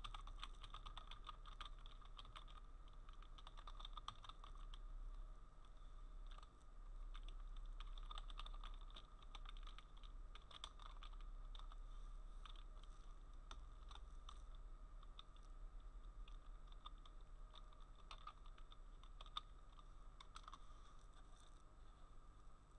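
Faint typing on a computer keyboard: irregular key clicks over a steady low hum.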